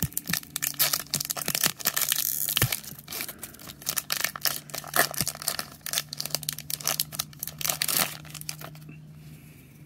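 Foil booster-pack wrapper of a Digimon card game pack being torn open and crinkled by hand, a dense crackling for about eight seconds that dies down near the end.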